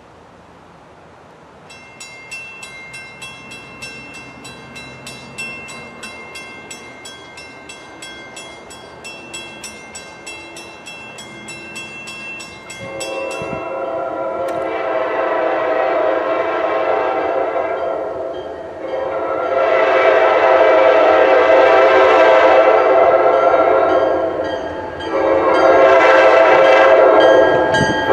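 Grade-crossing warning bell ringing in quick repeated strikes for roughly the first half. It stops as a Buffalo & Pittsburgh freight locomotive's air horn sounds two long blasts and starts a third, growing louder as the train approaches the crossing.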